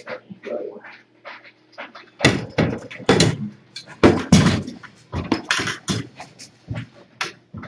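Irregular knocks, clicks and thumps with rustling, the loudest bursts about two, three and four seconds in.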